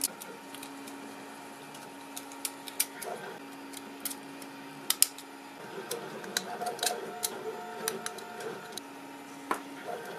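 Scattered small clicks and taps of a 3D-printed PLA container and lid being handled and picked clean of stringing at the hinges with small metal tools. A steady low hum stops and starts under them.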